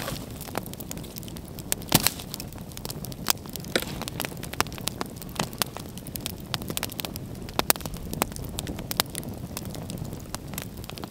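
Open wood campfire crackling and popping, with sharp irregular snaps, the loudest about two seconds in, over a low steady rush of burning.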